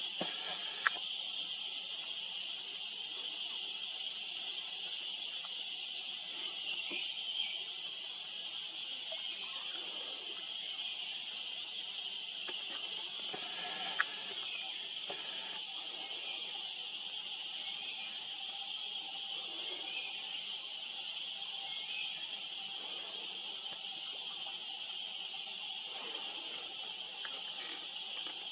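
A steady chorus of insects, a continuous high-pitched drone, with a few faint short chirps now and then.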